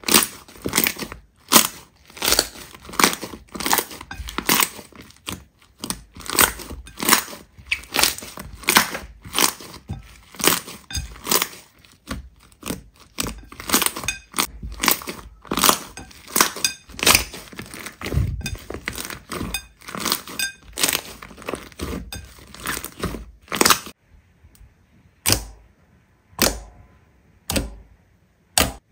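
Slime being pressed and squeezed, giving a run of short crunchy crackles about one or two a second, which thin out to a few scattered ones near the end.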